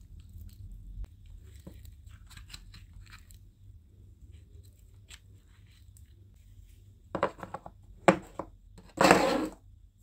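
Thick yellow slime with small foam beads worked between the fingers. Faint crackles come first, then three loud sticky tearing pops near the end, the last lasting about half a second.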